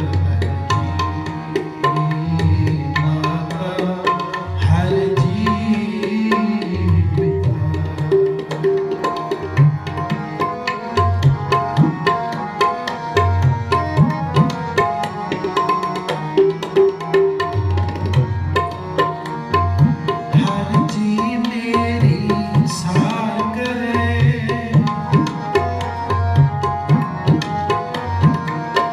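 An instrumental kirtan interlude. The tabla plays fast strokes, with the deep bayan bass strokes sliding in pitch, under a sustained harmonium melody.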